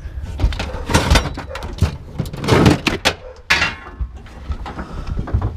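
Irregular knocks and clatters of tools and metal being handled, with a louder scraping rush about two and a half seconds in.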